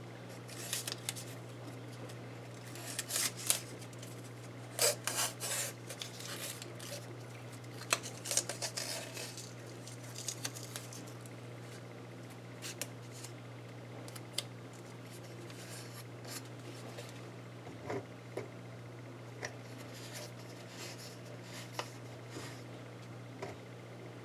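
Blue painter's tape being snipped with scissors and pulled and wrapped around a 3D-printed plastic lens adapter: scratchy rustling and snipping in short bouts, busiest in the first half, over a steady low hum.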